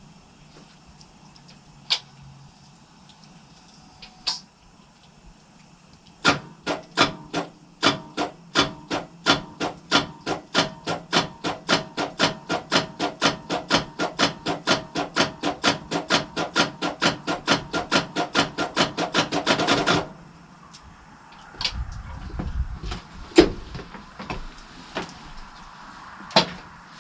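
Diesel truck engine being cranked by its starter for about fourteen seconds, a steady rhythm of about three to four pulses a second, without firing, then the cranking stops suddenly. A few clicks come before it, and a low rumble and knocks after.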